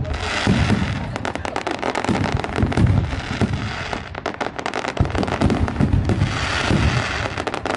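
Aerial fireworks going off in a dense barrage: many shells bursting with low booms, layered with rapid pops and crackles in quick succession.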